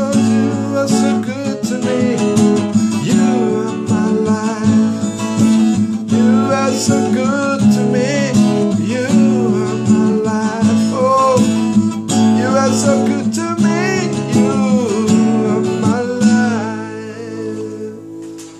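Song outro: acoustic guitar strumming chords under a sliding, bending melody line, fading out over the last two seconds or so.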